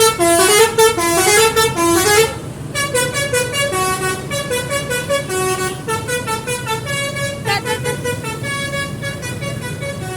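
Bus's multi-tone 'basuri' telolet air horn playing a long melodic tune, the notes stepping up and down. It is loudest for the first two seconds, then carries on more quietly for several seconds over a low engine rumble.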